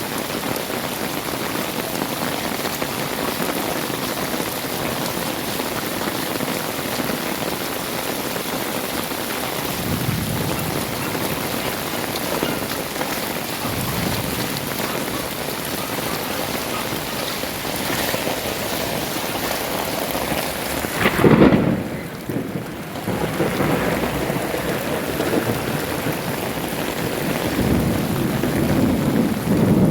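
Heavy rain pouring steadily, with several low rumbles of thunder rolling through; the loudest comes about two-thirds of the way in.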